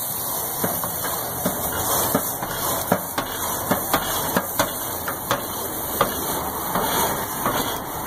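Wire grill brush scrubbing the grates of a hot gas grill: a continuous scratchy rasp with many irregular sharp metallic clicks as the brush knocks across the bars.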